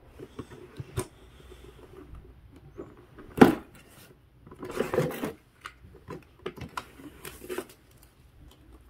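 A cardboard board-game box being handled and opened, with scattered rustles, scrapes and light knocks. There is a sharp knock about three and a half seconds in, and longer scuffing rustles around five and seven seconds.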